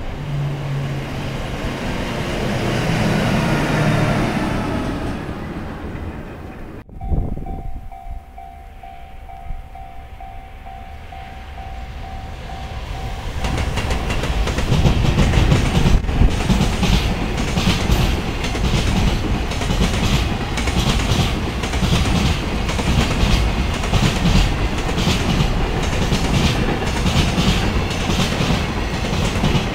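A blue single-car train running past. After a break, a steady pulsing tone sounds for several seconds. Then a long container freight train rolls by, its wagons clacking over the rail joints in an even rhythm.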